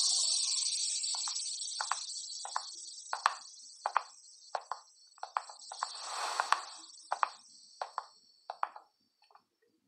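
Footsteps of heeled shoes on a hard floor, sharp clicks about one every two-thirds of a second, growing fainter near the end. A fading hiss lies under the first half, and a brief whoosh swells just after the middle.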